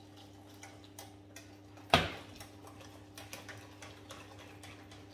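A single sharp metal clank about two seconds in, with a short ring, as a small steel saucepan is set down on a glass hob. After it come light, irregular clicks of a wire whisk against the steel saucepan as the milk and egg mixture is stirred.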